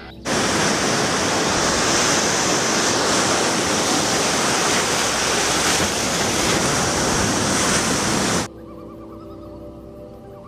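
Ocean surf washing steadily onto a sandy beach, cutting off suddenly about eight seconds in.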